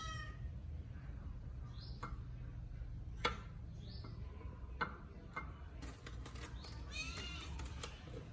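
Kitten meowing: a short meow right at the start and another about seven seconds in. A few sharp clicks fall in between, the loudest about three seconds in.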